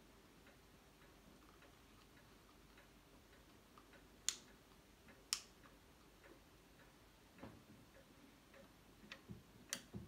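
Near silence with faint scattered ticks and a few sharp clicks, the two loudest about four and five seconds in. Near the end a cluster of small clicks as a hand works the valve wheel on the steampunk lamp.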